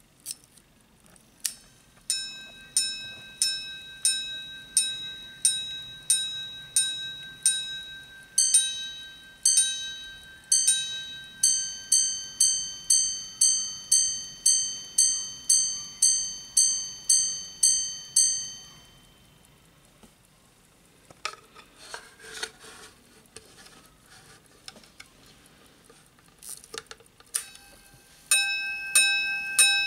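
Pocket minute repeater striking the time on its gongs. A click of the slide starts it, then come slow single strikes on the low gong for the hours, three ding-dong double strikes for the quarters, and a faster run of high strikes for the minutes, ending about 19 s in. After some handling knocks, the repeater strikes again near the end while resting on a wooden sounding board, louder and with a longer ring.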